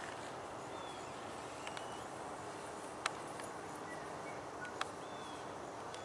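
Faint outdoor ambience with the steady drone of the distant radio-controlled P-47 model's engine, broken by a few short high bird chirps and two sharp clicks about three and five seconds in.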